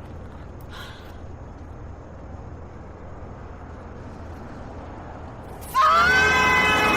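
Steady low background noise. About six seconds in, a much louder held pitched sound cuts in, sliding up briefly before it settles.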